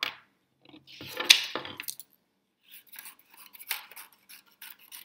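Scissors snipping through paper, cutting out a traced paper circle in a run of short cuts, about three a second, in the second half. Before that, a sharp knock at the start and a louder clatter and rustle about a second in as the paper and scissors are handled.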